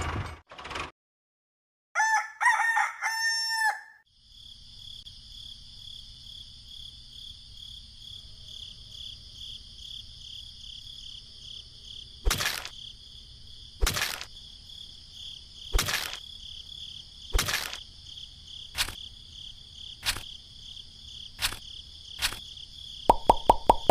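A rooster crows once, followed by a steady high chirring of crickets. Over the chirring, sharp clicks or knocks come about every one and a half seconds, then a quick run of clicks near the end.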